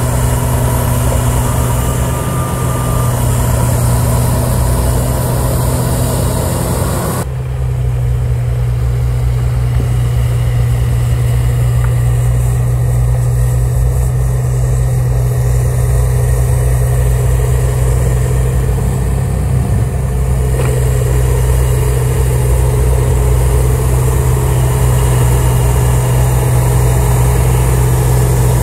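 CAT 938G wheel loader's diesel engine running steadily under load as its front-mounted two-stage snowblower cuts through deep snow, a constant low hum. About seven seconds in, much of the higher hiss drops away while the hum carries on.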